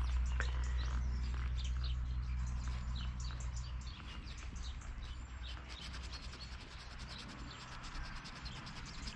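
Paper towel rubbing and wiping over the plastic around a chainsaw's carburettor mounting, with short scratchy strokes. A low steady hum underneath fades out about four seconds in.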